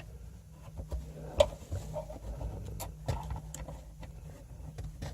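Scattered light clicks and knocks of a car speaker being handled and lined up in its mounting holes, with one sharper knock about a second and a half in, over a steady low hum.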